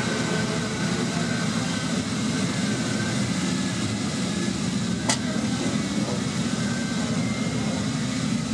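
Ferrari 250 GTO's three-litre V12 idling steadily, with a single sharp click about five seconds in.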